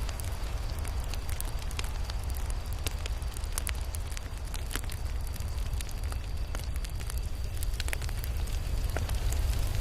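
Campfire burning, with irregular sharp crackles and pops from the burning wood over a steady low rumble.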